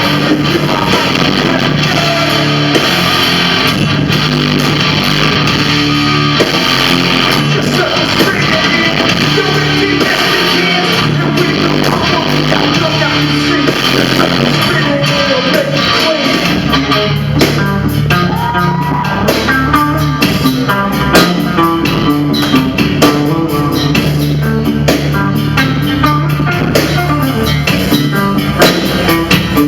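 Live band playing loud rock music with electric guitar, bass and drums, and some vocals. The drum hits come through sharper from about halfway in.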